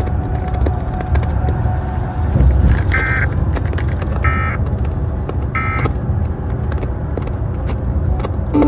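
Emergency Alert System end-of-message (EOM) data signal: three short, shrill two-tone digital bursts about 1.3 seconds apart, closing the river flood warning, over a steady low rumble.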